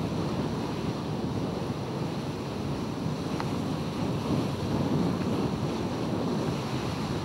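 Steady low rushing noise, like wind buffeting the microphone, with one faint click about three and a half seconds in.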